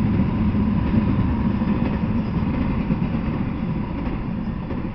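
Double-stack intermodal freight train cars rolling past on the rails, a steady rumble of steel wheels on track that eases off slightly near the end as the last cars go by.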